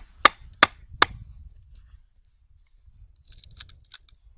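Four sharp wooden knocks in quick succession, about a third of a second apart, as a stick of wood with a small hatchet's blade set in its top end is knocked down against a stump, driving the blade into the wood. Faint light clicks near the end.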